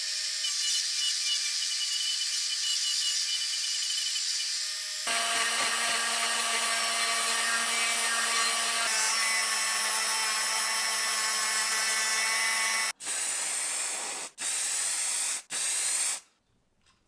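An electric power tool running steadily with a high whine and hiss, its tone shifting twice as it goes; near the end it is stopped and started again in three short runs, then stops.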